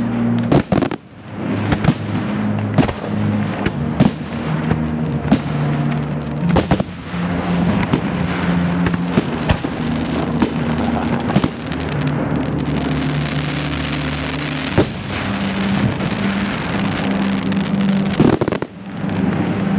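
Fireworks display: shells bursting with sharp bangs about once a second over a dense, steady background of noise, with a longer pause between bangs in the last few seconds.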